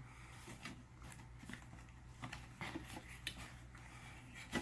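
Packaging and small parts being handled: irregular rustling and light clicks, with one sharper click near the end.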